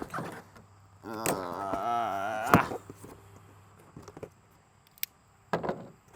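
A cardboard shipping box being opened: cardboard rubbing in a drawn-out, wavering squeal that ends in a sharp snap, then a lone click and a dull thunk.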